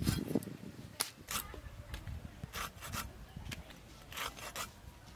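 Stingray flesh being sliced into small pieces on a boti, a curved blade fixed upright on a wooden base: a run of short scraping cuts at uneven intervals, with a dull thump right at the start.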